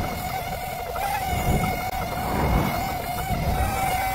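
FPV quadcopter hovering, its motors and propellers giving a steady buzzing whine at one pitch, over an uneven low rumble.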